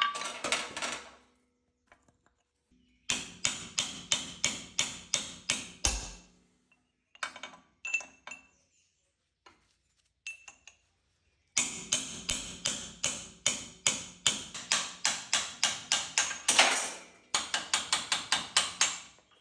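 Hammer blows on a chisel splitting a seized ball-bearing inner race off a steel idler shaft, metal on metal. The blows come in two fast runs of about three to four a second, with a pause between.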